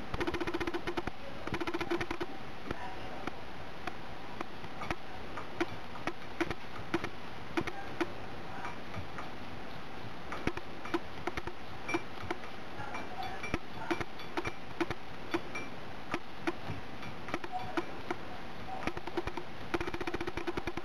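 Cat lapping water from a mug: soft, regular clicks about two a second. A rapid buzzing accompanies it at the start and again near the end.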